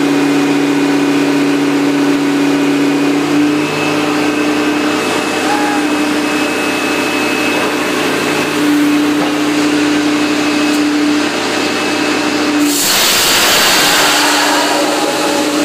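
Water-well drilling rig running with a steady machine drone and a humming tone that drops out and returns several times. Near the end, a loud rush of air and water spray blows out at the wellhead for about two seconds.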